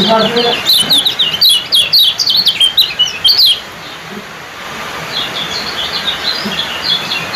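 Caged kecial kuning (yellow white-eye) calling: a fast string of short, sharp, high chirps for about three and a half seconds, then after a brief pause a softer run of chirps.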